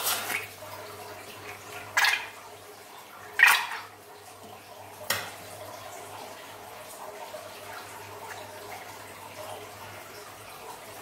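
Scissors cutting through the rubber neck of a liquid-filled balloon, four sharp snips in the first five seconds with the loudest about three and a half seconds in. After that, thick white liquid is squeezed out of the balloon and pours and drips into a glass dish of slime.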